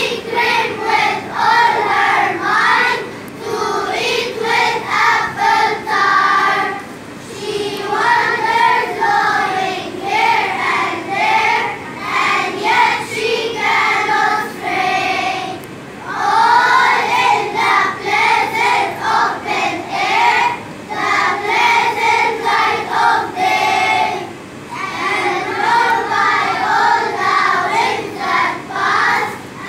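A group of young children singing together in short phrases, with brief pauses between lines.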